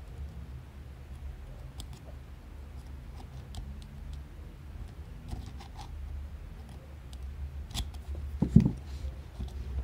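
Faint small metallic clicks and scraping of a bent steel tool working the threaded barrel-retaining piece at the muzzle of a .22 Auto Nine pocket pistol's slide, over a steady low hum. A soft knock comes near the end.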